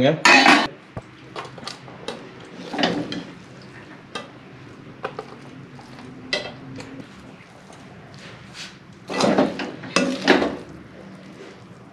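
A metal spoon scraping and clinking against a steel kadhai and steel bowl as cooked noodles are scooped out and served. The sounds come as separate scrapes and clinks with quieter gaps between, the loudest scraping about nine to ten seconds in.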